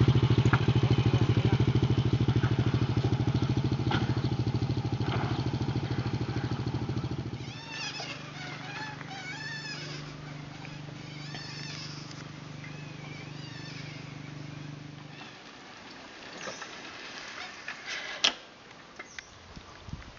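A small step-through motorbike's engine running close by with an even, rapid putter, which cuts off abruptly about seven seconds in. After that, birds chirping over a low steady hum, then a quieter stretch with a few sharp clicks near the end.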